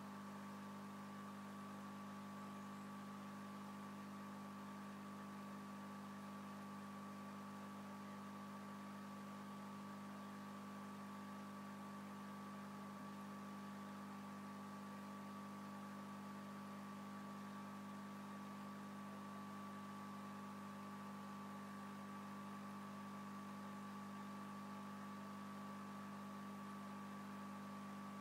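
Faint, steady electric hum of an aquarium filter pump, with a thin higher whine above it and light hiss, unchanging throughout.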